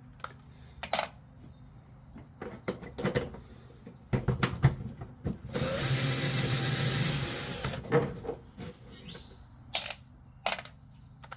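A power drill runs for about two seconds near the middle, backing out a hood-scoop bolt, with sharp metal clicks and clinks of tools and hardware before and after.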